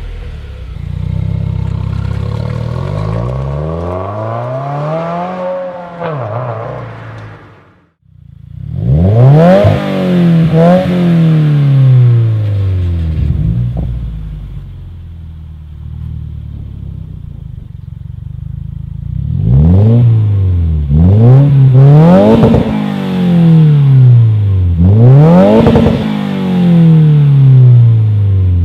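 A 2015+ Subaru WRX's turbocharged flat-four revved through an aftermarket exhaust, the engine pitch climbing and falling back again and again. The sound drops out briefly about eight seconds in, then a new run of quick revs follows.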